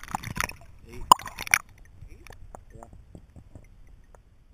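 Water splashing as a largemouth bass is released by hand and the camera plunges underwater, loudest twice in the first second and a half. This is followed by a run of faint, muffled underwater ticks and bubbling that fade out.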